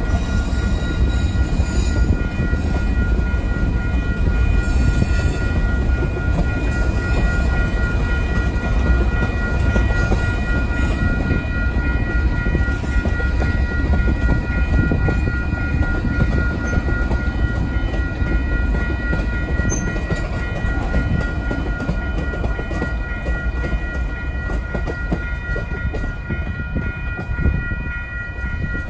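A freight train's cars rolling past, with a steady low rumble from the wheels on the rails. A steady high ringing tone sounds over it.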